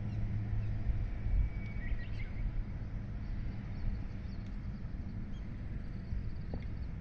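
Outdoor ambience: a steady low rumble, with a few faint bird chirps about two seconds in.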